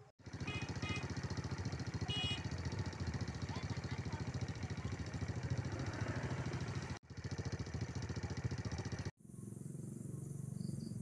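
A small engine running steadily with rapid, even pulses. It cuts off suddenly about seven seconds in and again about nine seconds in, and a quieter, steadier low hum follows.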